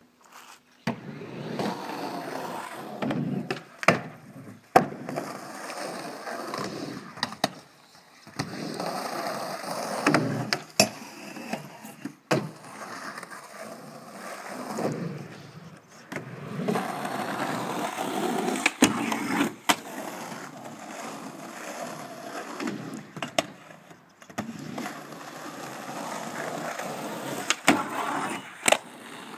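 Skateboard wheels rolling over asphalt and skatepark ramps, with sharp clacks of the board popping, hitting the ramps and boxes, and landing, many times over.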